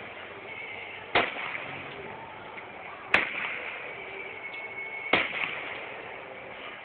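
Aerial fireworks going off: three sharp bangs, about two seconds apart.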